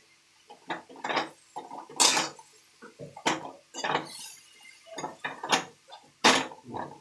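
Metal spatula scraping and knocking against a metal kadhai as shredded cabbage is stirred, in irregular strokes, about one or two a second.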